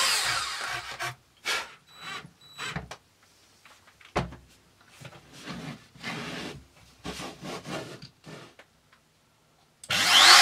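An electric drill spinning down in the first second, then scattered rubbing and knocking as MDF pieces and a router base are slid and set down on the bench. Near the end a trim router switches on, its motor whining up to full speed, the loudest sound.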